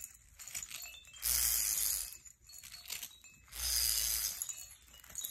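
Plastic baby rattle toy being shaken in two short bursts of bright rattling.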